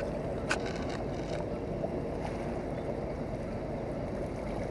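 Steady low rush of wind and flowing river water, with a single short click about half a second in.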